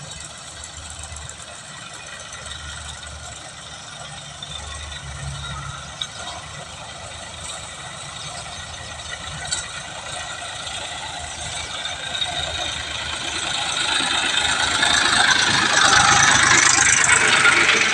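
Kubota rice combine harvester running, a steady engine and machinery whine that grows much louder over the last third as the machine comes close.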